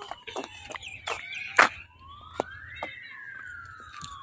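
A siren wailing, its pitch sliding up over about a second and then slowly back down. Crisp clicks and scuffs of footsteps on a gritty road run through it, and there is one sharp knock about one and a half seconds in.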